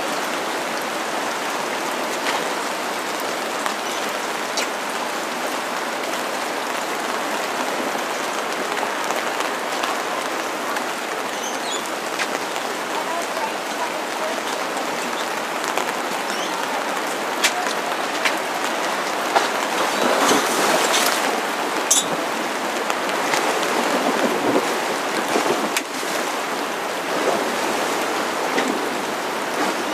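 Steady rain falling, an even hiss with scattered sharp drop ticks, growing denser and louder for a couple of seconds about twenty seconds in.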